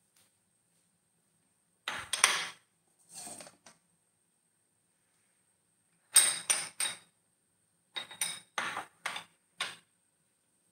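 Dishes and utensils clattering in four short clusters of knocks and clinks, with silence between.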